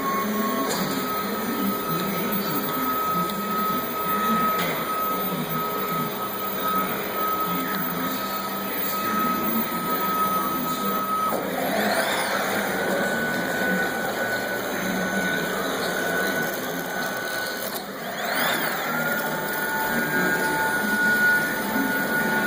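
CNC plasma table's axis drive motors moving the gantry with no bed fitted: a steady mechanical whine over a rattly running noise, its pitch sweeping and settling at a new pitch about eleven and again about eighteen seconds in as the axes change speed.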